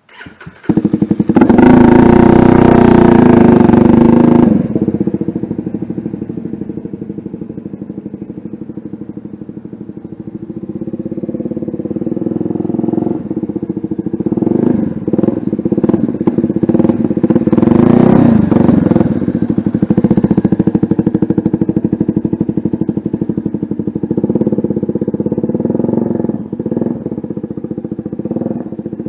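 CFMoto 300SS single-cylinder engine through an aftermarket slip-on exhaust, accelerating away loudly in the first few seconds. It then fades as the bike rides off, and grows louder again with revving and gear changes as the bike rides around.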